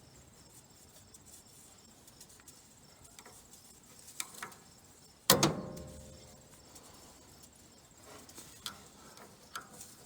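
Stuck steel chain coupler on a Gleaner M2 combine's head drive shaft being knocked loose with a hammer: one hard metal strike about five seconds in that rings briefly, with a few light metal clinks before and after it.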